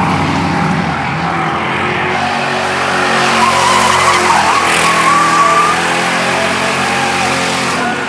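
Crown Victoria Police Interceptor race cars running hard on the oval, their V8 engines loud, with tires skidding. A tire squeal holds for about two seconds midway. The sound cuts off abruptly at the end.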